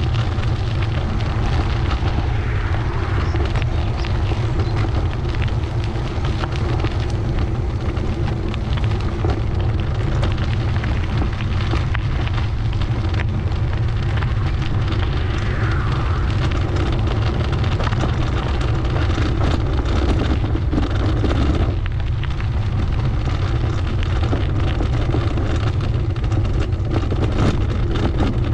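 Wind buffeting the microphone of a camera carried along on a moving bicycle: a steady, heavy low rumble with a hiss above it.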